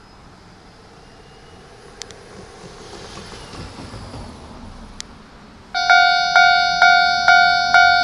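Faint rail-yard background with a few sharp clicks. Then, about three-quarters of the way through, a level-crossing warning bell starts ringing loud and abrupt, about two strikes a second. Near the end a second set of lower tones joins in.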